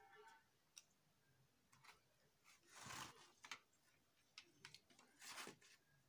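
Faint handling sounds from a set-top box circuit board and its ribbon cable being moved and laid on cardboard: scattered light clicks and two short rustles.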